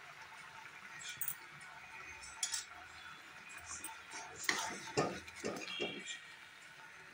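Metal spatula scraping and clicking against a steel pan while stirring thick, simmering tomato chutney as jaggery melts into it. The strokes come irregularly, and the loudest ones fall between about four and six seconds in.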